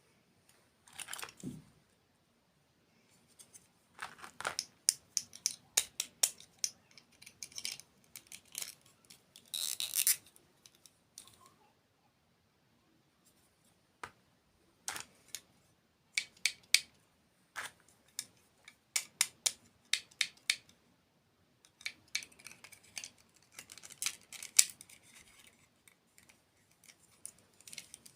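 Close-miked eating: crisp crunching and chewing in clusters of sharp crackles, with a few short pauses between bites.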